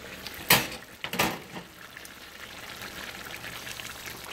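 Thick egusi soup of ground pumpkin seeds boiling in an uncovered pot, a steady bubbling and spattering as a spoon stirs it. Two sharp knocks come in the first second and a half.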